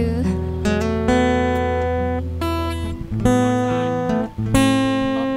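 Acoustic guitar strumming a slow run of chords after the singing has stopped, about five chords each left to ring.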